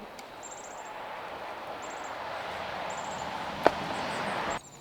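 A rushing noise grows steadily louder, with one sharp click about three and a half seconds in, then cuts off suddenly. Faint, repeated high bird chirps sound over it.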